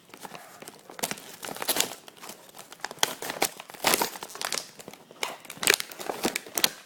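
Plastic toy packaging crinkling and being torn open by hand, in irregular crackling clusters.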